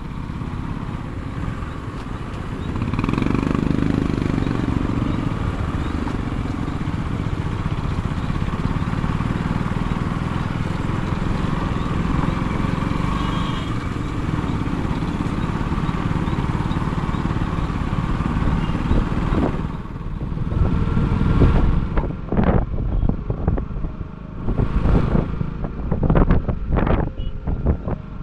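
A car driving on the road, with steady engine and road noise. From about twenty seconds in comes a run of uneven, loud, sudden rushes of noise.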